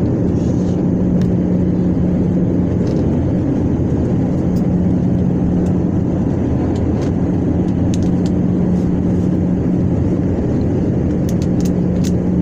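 Jet airliner cabin noise beside the wing: the turbofan engines and rushing air give a steady, even roar with a constant low hum under it, during the descent to land. A few faint ticks come near the end.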